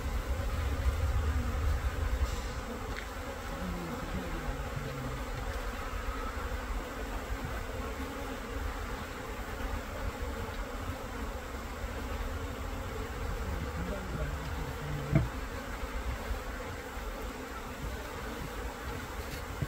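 A mass of Korean native honeybees (Asian honeybees) buzzing steadily at the hive entrance while the colony swarms out. A single short knock sounds about fifteen seconds in.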